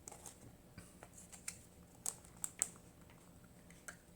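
A scattering of faint, sharp little clicks and taps from handling the face-mask container, the loudest few about two seconds in.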